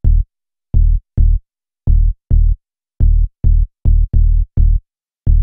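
A dry, soloed electronic bass line at 106 BPM: short, separate low notes, many of them in quick pairs, each with a bright click at its start and cut off cleanly, with no reverb on it yet.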